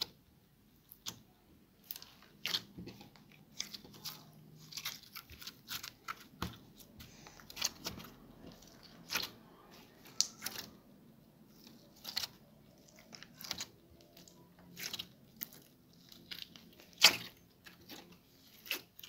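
Purple slime being squeezed, poked and folded by hand, giving a string of short pops and clicks, one every half second to a second, with one louder pop near the end.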